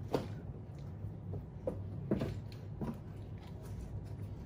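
A few short clicks and knocks of small handling noises at a table, over a steady low hum.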